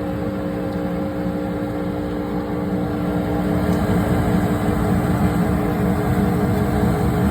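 Lennox gas furnace running with a steady hum made of several held tones over a low rushing noise, which grows a little louder about three seconds in. The furnace hums even before the main blower comes on and the burners light, and the owner cannot yet say which part causes it.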